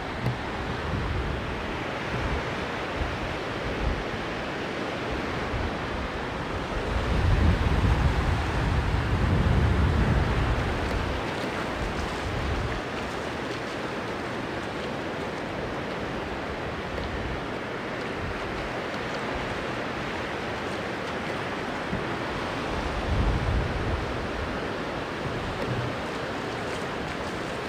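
Sea surf washing onto the beach in a steady rush, swelling louder with a low rumble about seven seconds in and again briefly near twenty-three seconds.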